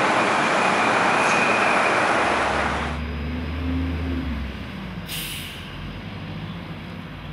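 A loud, steady rushing noise, then, after a cut, a fire truck's engine running with a low rumble and a short air-brake hiss about five seconds in.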